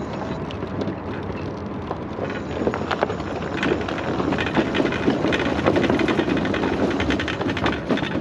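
Mobility scooter wheels rolling across the wooden plank deck of a cable suspension bridge: a dense, irregular clatter and rattle of loose boards that grows busier and louder a few seconds in, over a steady low rumble.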